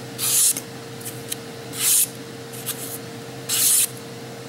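Chef's knife slicing through a strip of paper three times, each cut a short hiss about a second and a half apart, over a faint steady hum. It is a paper-slicing test of how sharp the edge is.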